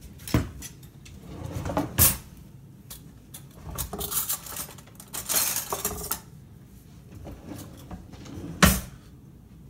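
Kitchen utensils and a utensil drawer being handled: sharp knocks about half a second in, about two seconds in and a loud one near the end, with a stretch of clattering and rummaging in the middle.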